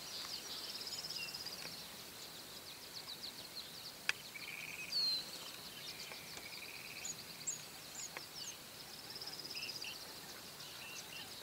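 Birds chirping and trilling over quiet outdoor background noise, in many short high calls and trills with a few brief whistles. A single sharp click sounds about four seconds in.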